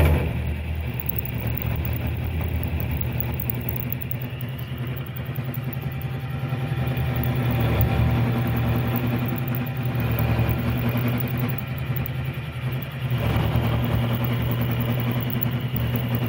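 Milling machine running, an end mill cutting a slot through steel plate under hand-cranked table feed, with a steady low hum that grows a little louder about thirteen seconds in. The cut is vibrating heavily, which the owner thinks could be the 1,150-pound machine jumping around on its casters or looseness in the table.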